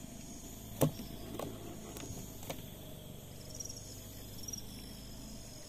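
Insects chirping high and faint in rapid pulses, with a sharp click about a second in and a few softer ticks after it.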